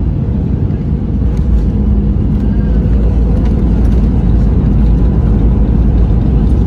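Airbus A320 landing roll heard from inside the cabin: a loud, deep rumble of the wheels and engines on the runway. It swells a second or two in, as the ground spoilers deploy and the airliner decelerates.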